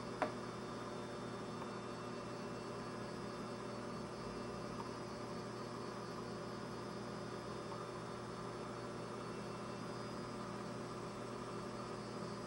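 Steady low electrical mains hum with a faint hiss underneath, unchanging throughout; one short click just after the start.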